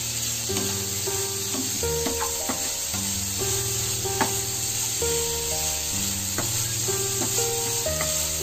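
Sliced onions, green chillies and peanuts sizzling in hot oil in a nonstick pan, with a spatula stirring and clicking against the pan. Background music with held notes and a bass line plays over it.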